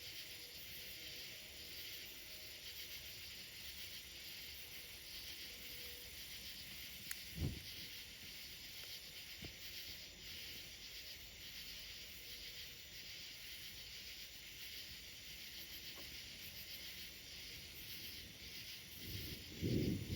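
A faint, steady hiss, with one dull knock about seven and a half seconds in.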